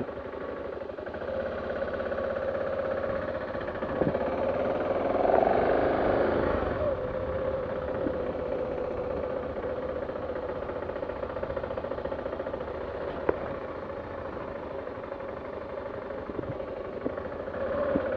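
Dual-sport motorcycle engine running steadily at low speed. It swells louder for a couple of seconds about five seconds in, and there are a couple of sharp clicks.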